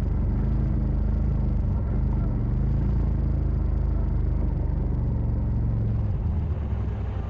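Side-by-side UTV engine running with a steady low rumble while driving on a trail; it eases off and gets quieter near the end as the machine slows.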